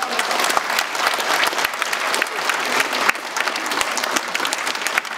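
A large seated audience applauding steadily in a hall, many hands clapping at once.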